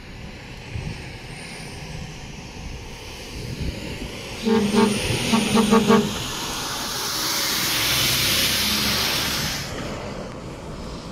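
A truck's air horn blown in a quick run of several short toots about four and a half seconds in, over engine rumble. Then a loud rush of engine noise builds for a few seconds and drops off sharply near the end.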